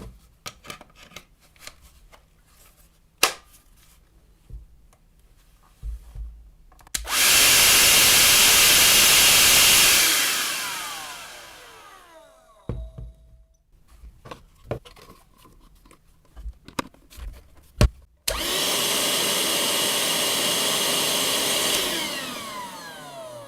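Parkside PHSSA 20-Li A1 cordless handheld vacuum cleaner switched on twice, running steadily for about three seconds each time, then switched off and spinning down with a falling whine. The second run is quieter than the first, and clicks of the switch and handling come between the runs.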